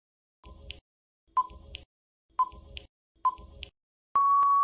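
Quiz countdown timer sound effect: four short electronic ticks about a second apart, then a long steady beep near the end that marks time running out.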